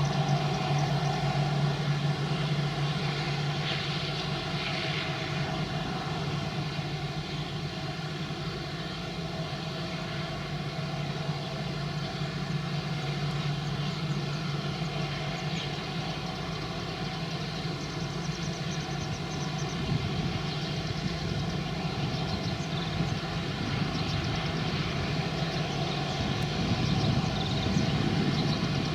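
Boeing 777-300 jet engines running with a steady hum and whine, holding an even level throughout.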